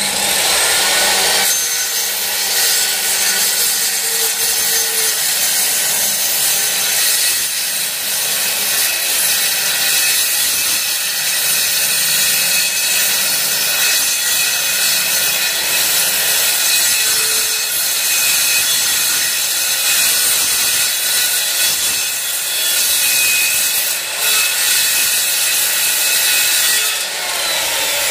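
Handheld electric circular saw cutting lengthwise along the edge of a wooden window sash, the motor running steadily under load as the blade chews through the wood. The sound eases briefly twice near the end.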